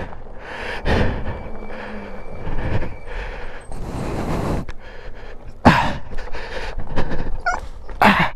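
Heybike Mars e-bike's 20-inch fat tyres rolling over gravel, with wind rush on a helmet-mounted microphone and the rider's heavy breathing. Two sharp knocks come about six and eight seconds in.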